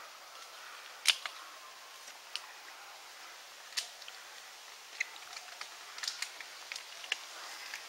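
Footsteps on a dry forest floor of leaf litter and twigs, giving sharp, irregular snaps and cracks about once or twice a second. The loudest snap comes about a second in.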